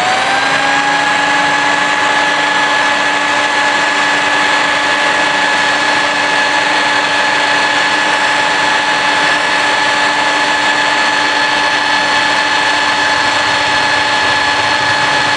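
Stanley SB90 belt sander running free with no workpiece, its motor and belt making a steady whine at constant pitch after coming up to speed in the first half-second. It is running while the belt tracking is adjusted to centre the belt on the front roller.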